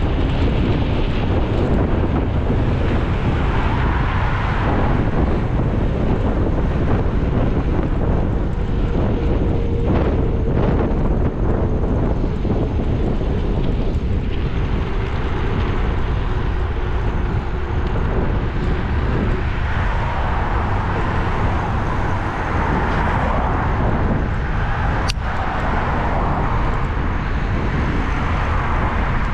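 Steady road noise from a moving car: a low rumble of engine and tyres. There is a faint steady hum through the middle and a single click near the end.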